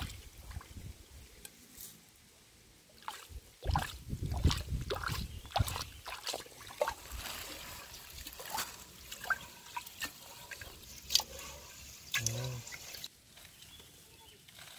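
Raw rice being washed by hand in a metal pot with pond water: water splashing, grains swished and rubbed in the water, and the cloudy rinse water poured off over the rim, in short irregular splashes and trickles.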